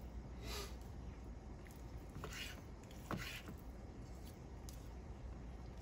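Kitchen knife slicing raw chicken breast on a wooden cutting board: a few faint, short cutting strokes with soft, wet handling of the meat between them.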